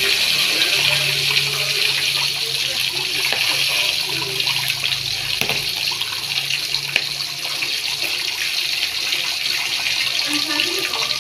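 Milkfish (bangus) frying in hot oil: a steady sizzle with many small crackles and pops.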